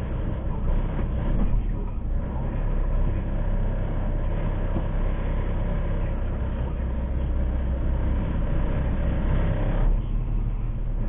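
Semi truck's diesel engine running, heard from inside the cab as a steady low rumble.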